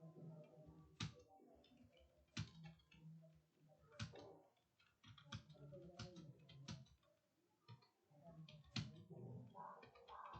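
Computer keyboard typing: a fast, irregular run of faint keystroke clicks, with a handful of louder key presses standing out every second or so.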